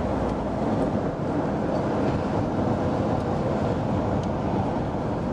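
Steady road and wind noise from a moving vehicle.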